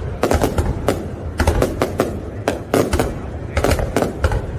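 Aerial fireworks bursting in a rapid, irregular volley of sharp bangs, several a second, each with a short rumbling tail.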